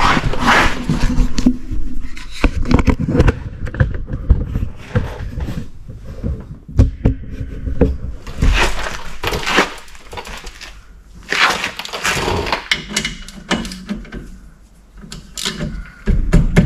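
Hand tools clanking, knocking and scraping on a rear disc brake while the 14 mm caliper and caliper-bracket bolts are loosened and taken out. There are irregular knocks throughout, with a few louder, noisier stretches of about a second each in the middle.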